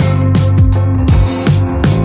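Funk instrumental music with a steady drum beat: deep kick drums, sharp snare and cymbal hits, and sustained chords.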